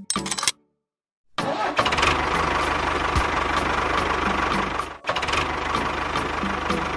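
Tractor engine starting about a second and a half in after a brief silence, then running steadily, with a short break near the end.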